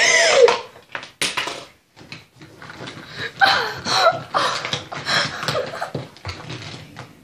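A girl laughing, in pitched, breaking bursts, with a sharp click about a second in.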